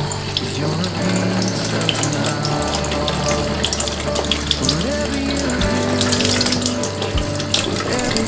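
Kitchen tap running water into a dishwasher spray arm, the water streaming out of the arm's nozzles and splashing into a stainless steel sink. This is a check that none of the nozzles are blocked. Soft background music plays along.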